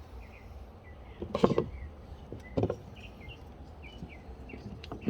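A few light clicks and knocks of plastic parts being handled, one about two and a half seconds in and another near the end, with small birds chirping faintly throughout.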